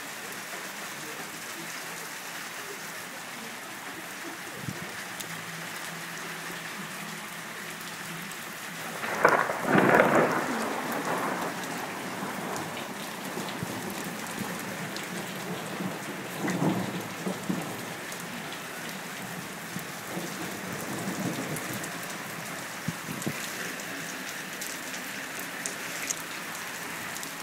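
Steady rain mixed with small hailstones pattering on wet concrete and a roof. About nine seconds in there is a much louder burst lasting around two seconds, and a smaller one about seven seconds later.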